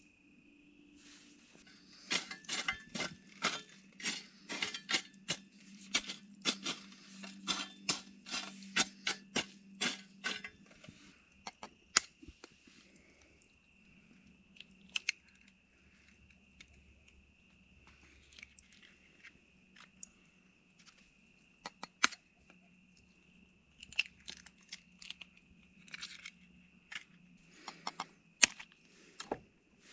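Aluminium foil crinkling in quick crackles for about eight seconds. Then come scattered clicks and taps, ending with a knife tapping an eggshell to crack it. A faint steady high tone runs underneath.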